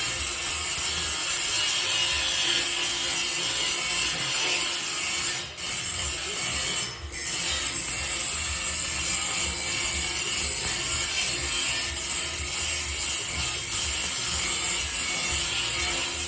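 Continuous workshop tool noise of material being worked, with two short breaks about five and a half and seven seconds in.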